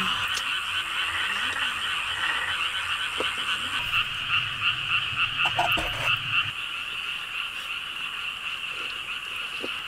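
A dense chorus of frogs, many calling at once in a steady, pulsing din. A few light clicks of utensils on metal dishes come through around the middle.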